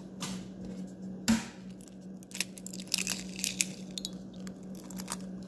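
A raw egg knocked once, sharply, on the rim of a bowl, then crackling as the shell is pulled apart and the egg drops in.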